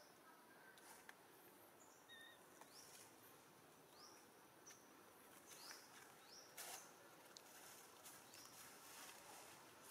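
Faint outdoor ambience: a soft hiss with scattered short, high chirps that rise in pitch, about half a dozen, and a few faint clicks.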